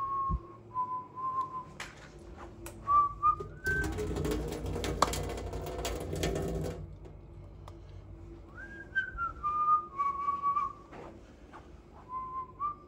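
Tea poured out of a glass teapot into a stainless steel sink, splashing for about three seconds starting about four seconds in. Around it, whistling in short phrases of held and sliding notes.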